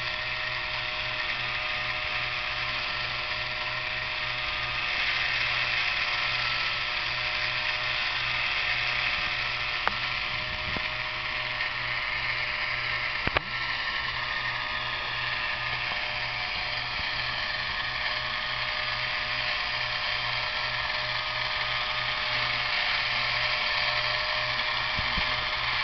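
Small DC-powered gearbox driving HO-scale model carnival rides, running with a steady mechanical whir and a fine rapid pulse. A short click about ten seconds in and a louder one about thirteen seconds in.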